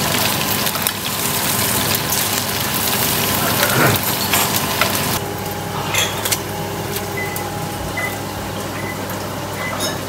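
Food sizzling as it fries in a pan, a steady hiss that grows fainter about halfway through.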